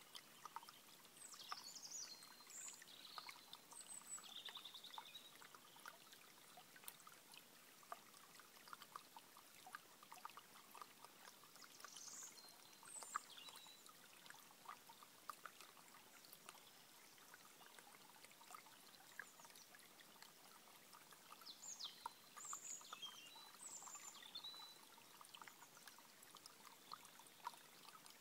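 Small shallow stream trickling faintly over stones, a steady babble of little splashes. A songbird sings short bright phrases in three bouts: near the start, about twelve seconds in, and again about twenty-two seconds in.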